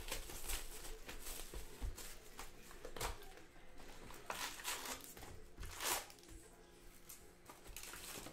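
A trading-card hobby box and its foil packs being torn open and handled: short bursts of crinkling and tearing wrapper, the loudest about six seconds in, over faint background music.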